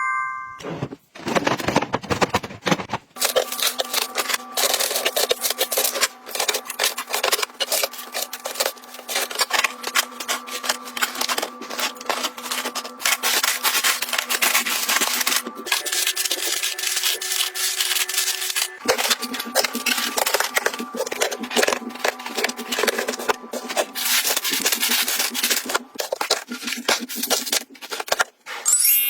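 Rapid, continuous rubbing and scraping with a steady hum beneath it; the hum changes pitch about halfway through and changes back a few seconds later.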